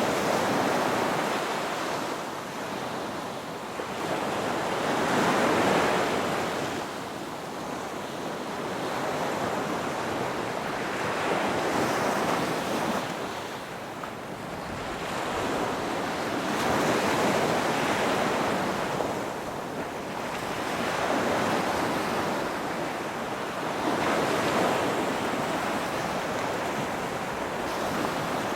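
Ocean surf: waves breaking and washing in, the rush swelling and fading about every five to six seconds.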